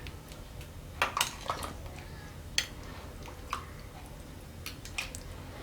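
Ladling iced fruit cocktail from a bowl into a cup: a handful of separate clinks and knocks of the ladle and ice against the containers.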